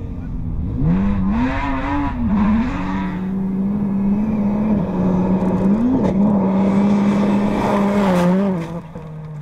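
Rally car engine at full throttle on a gravel stage. Its pitch rises and dips early on, then holds high and steady for several seconds with a few sharp cracks, and drops away near the end.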